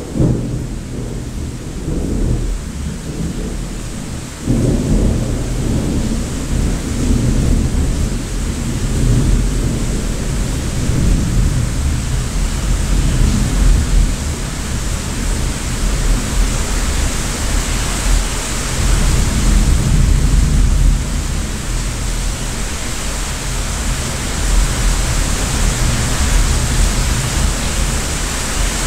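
Thunder rumbling over steady heavy rain. A new roll of thunder breaks in suddenly about four seconds in and rolls on, while the hiss of the rain grows louder in the second half.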